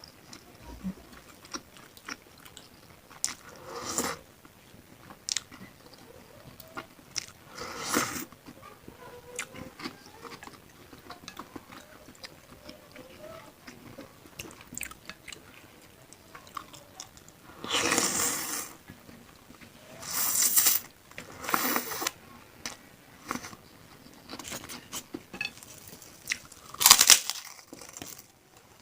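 Close-miked eating of bakso meatball soup with tetelan beef trimmings: chewing and biting with many small wet mouth clicks, broken by a few louder bursts about half a second to a second long, the loudest near the end.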